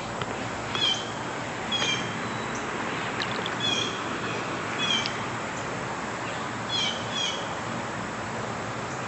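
A bird calling repeatedly: short, high, slightly falling notes every second or so, over the steady rush of river water.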